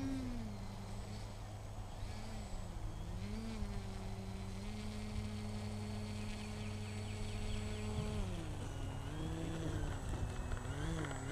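Distant buzz of an RC glider's electric motor and propeller, its pitch rising and falling as the throttle changes, over a steady low rumble.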